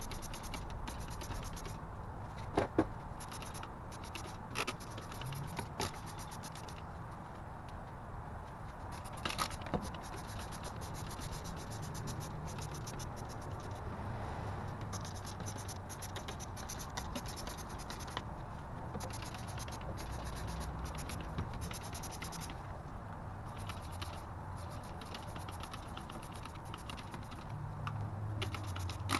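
Hand trigger spray bottle squirting cleaner onto an engine: a few short, sharp spritzes in the first ten seconds, over a steady low hum.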